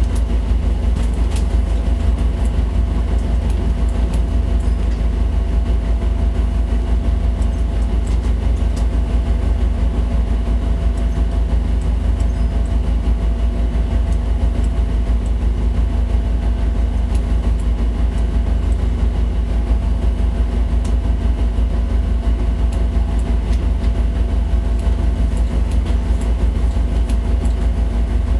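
Tugboat's diesel engine running steadily under way: a loud, even low rumble with a fine rapid pulse and a steady hum above it.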